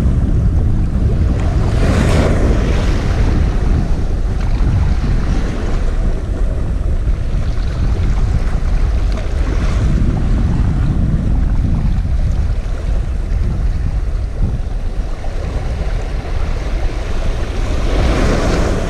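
Sea waves washing and breaking against shoreline rocks, with surges of surf about every eight seconds, mixed with wind buffeting the microphone.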